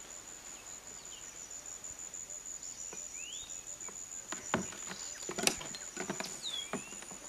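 Tropical outdoor ambience: a steady high-pitched insect trill with occasional short rising and falling chirps. From about four seconds in come a handful of sharp clicks and knocks, the loudest around five and a half seconds.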